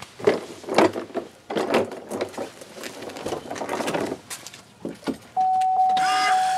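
A few scattered knocks and clunks, then about five and a half seconds in the AirDog II 4G lift pump starts with a steady whine and a hiss. It is being powered from the ignition to prime the fuel system, pushing air out through a deliberately loosened fuel filter.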